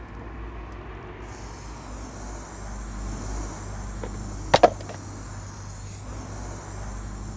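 Steady low background hum. About four and a half seconds in comes a sharp double knock as a paint tin is set down on the ground.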